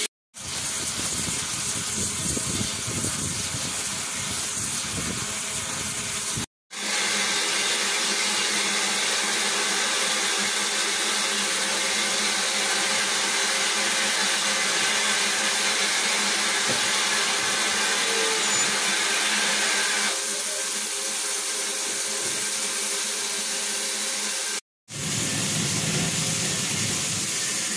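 Steady steam hiss from a standing steam locomotive, Southern Railway No. 506. It cuts out abruptly three times for a split second.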